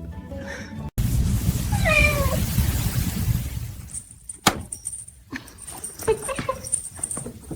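A cat meowing over a noisy background: one drawn-out meow that bends in pitch about two seconds in, then a sharp click, and shorter meows near the end.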